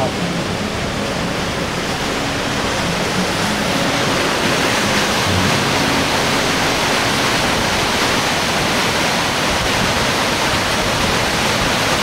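Waterfall in full flow, swollen by heavy rain: a loud, steady rush of falling and churning water.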